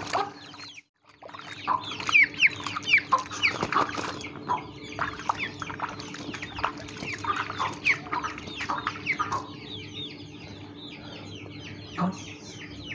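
Chicken chicks peeping loudly in a rapid string of short, falling cheeps, frightened at being bathed in the water, with a short break about a second in. A faint steady hum runs underneath.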